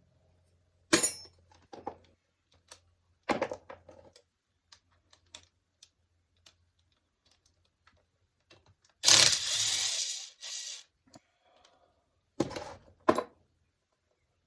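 Tools and small metal parts being handled on a workbench: a few sharp clacks and clinks, and a harsher clattering or scraping burst of about a second and a half near the middle, which is the loudest part.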